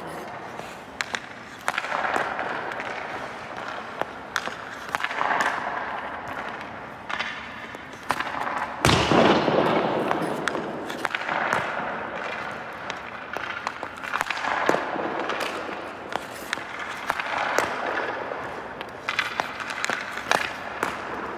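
Ice hockey shooting drill: a run of sharp knocks as a stick strikes pucks and pucks hit the goalie, with skates scraping across the ice every few seconds between shots. The loudest knock comes about nine seconds in.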